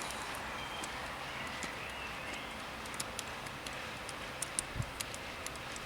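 Scattered light clicks and taps from handling the small plastic window-switch housing and its tiny Torx screws, heard over a steady hiss. The clicks come thickest about three to five seconds in.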